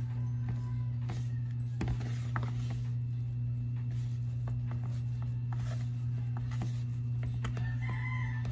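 Wooden spoon stirring stiff rye flour dough in a plastic bowl, with irregular scraping and light clicks against the bowl, over a steady low hum.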